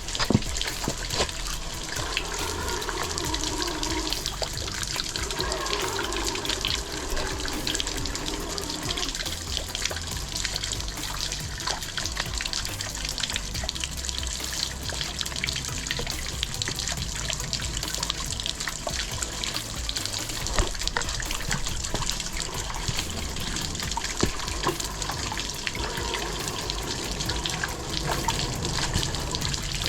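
Steady rushing of creek water tumbling over rocks and small waterfalls.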